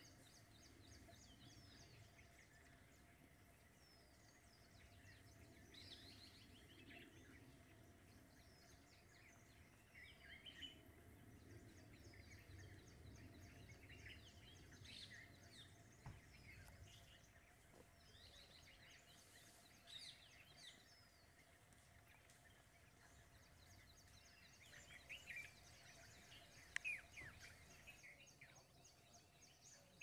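Faint natural ambience: scattered short chirps and calls from small birds over a steady low background hiss, with a faint, fast, high trill coming and going. The chirps are loudest about two-thirds of the way through and near the end.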